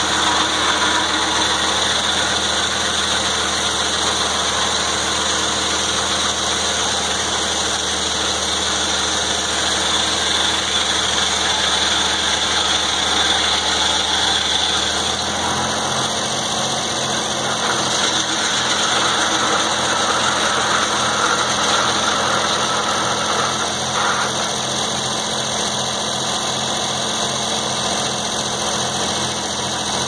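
Antique American circular sawmill running, its big blade sawing through a log on the carriage with the drive engine under load; about halfway through the cut ends and the machinery's sound changes to a steadier running with an even low pulsing as the carriage is run back.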